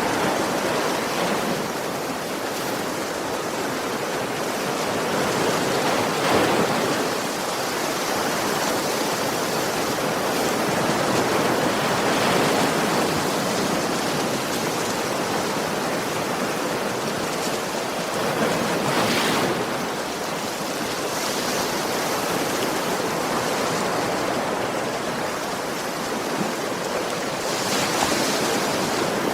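Sea waves breaking gently on a shore, a steady wash of surf that swells and eases every few seconds.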